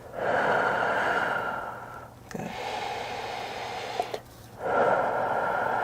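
A person breathing deeply and audibly in three long breaths of about two seconds each; the first and last are the loudest.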